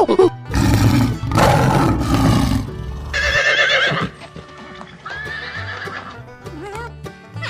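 A horse neighing, a loud whinny about half a second in that lasts roughly three seconds and ends in a high, wavering stretch, over steady background music.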